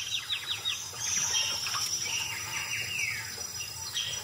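Wild birds calling: a quick run of short, falling chirps at the start, more chirps about a second in, and a longer call sliding downward about three seconds in, over faint steady marsh ambience.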